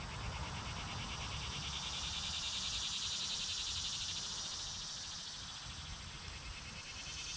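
Steady chorus of insects trilling in the trees, a fast even pulsing buzz that eases slightly in the second half.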